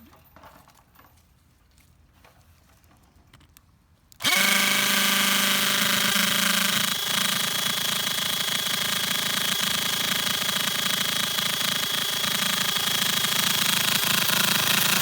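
Faint handling clicks, then about four seconds in a hammer drill starts and runs steadily at speed with a whine, spinning a wooden bit against a fireboard to build a friction-fire ember.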